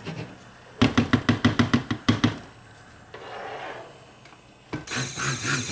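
A quick run of about a dozen rattling clicks lasting a second and a half, then plastic measuring pitchers and utensils clattering on a countertop as they are moved about.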